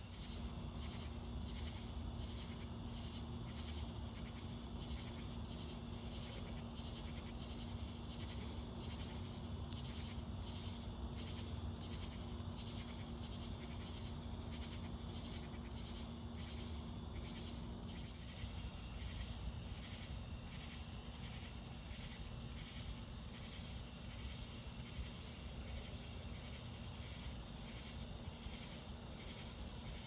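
Night insect chorus: a steady high-pitched trill with rhythmic chirps pulsing a few times a second. Under it a low steady hum stops about eighteen seconds in.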